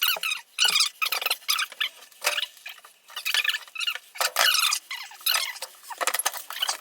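Hand demolition work: a quick, irregular run of short scraping and squeaking strokes, several a second, as material is worked out of a wall frame.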